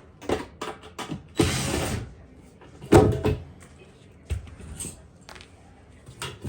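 Lower front panels of a Kenmore dishwasher being worked loose and handled: scattered clicks, a scraping rasp about a second and a half in, and a sharp knock about three seconds in.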